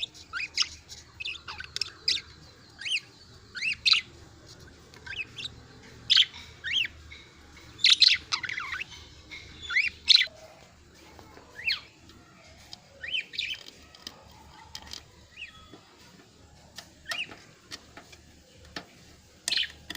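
Pet budgies chirping and chattering, with short, sharp rising and falling calls coming in irregular bursts.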